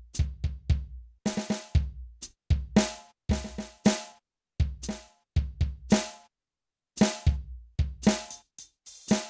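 Alesis DM6 drum module's default sampled drum voices, triggered from DIY mesh pads: a played groove of kick and snare hits. The playing stops for about a second roughly six seconds in, then resumes with more cymbal wash near the end.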